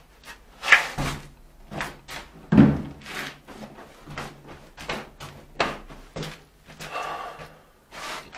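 Irregular knocking and clattering, a string of short hard knocks with two loud bangs, the first a little under a second in and the second about two and a half seconds in.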